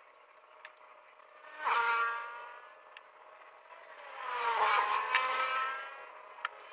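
Motor vehicles passing by, their engine note swelling and bending in pitch as each goes past: briefly about two seconds in, then a longer pass from about four to six seconds. A couple of sharp clicks near the end.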